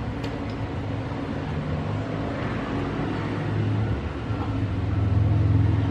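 A steady low hum that grows louder from about four seconds in.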